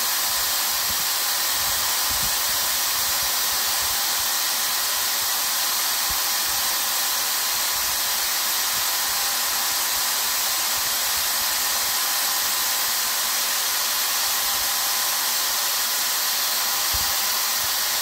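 1200-watt electric car polisher running steadily with no load: an even, hissing motor whir that holds the same level throughout.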